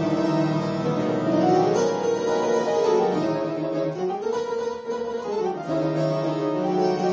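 Steinway grand piano played with its lid closed: a Spanish-flavoured improvisation of sustained, changing chords and melody.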